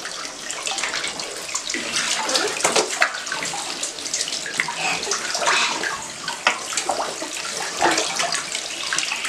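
Tap water running into a bunch of self-sealing water balloons as they fill, with water splashing and dripping into a tub of water below. A hand splashes in the tub water, giving many short splashes.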